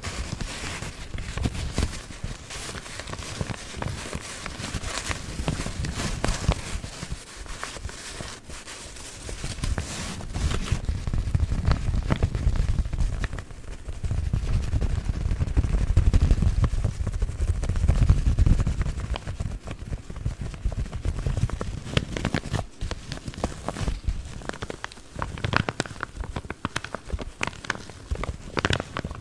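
Paper coffee filter bags crinkled and crackled close to the microphone in a constant stream of small crackles, with a louder stretch of deeper rubbing in the middle.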